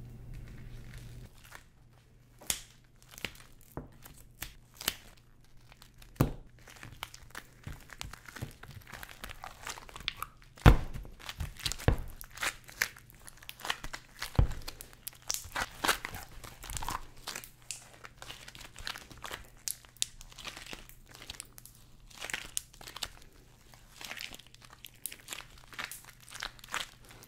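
Warm pulled-sugar dough being pressed, folded and pulled apart in cotton-gloved hands, giving a dense, irregular run of sticky crackles and clicks, loudest about halfway through.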